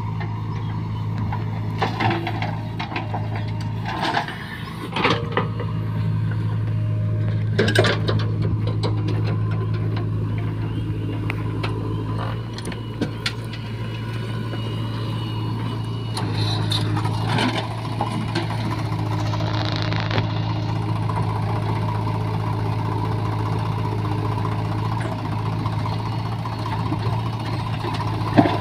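JCB 3DX backhoe loader's diesel engine running steadily while it digs and dumps mud into a tractor trolley. Scattered clanks and thuds from the bucket and falling mud come through at intervals.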